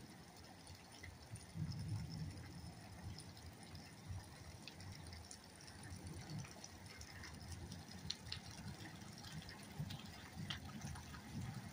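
Steady rain falling, with scattered drops ticking and an uneven low rumble of wind gusts.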